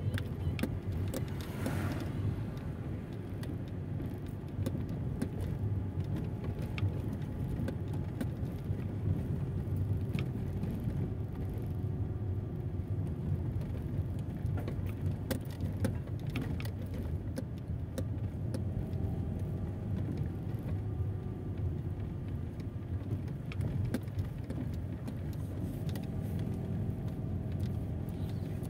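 Mercedes-Benz car driving slowly, heard from inside the cabin: a steady low rumble of engine and tyres on the road, with occasional light clicks.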